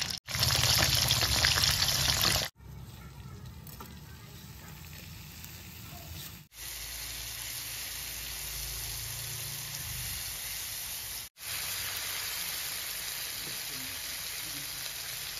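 Hot oil sizzling and crackling as a piece of boiled salted fish fries, loudest for the first two seconds. After that comes a quieter steady sizzle of chopped chilli spice paste being sautéed and stirred with a spatula, broken by brief sudden gaps.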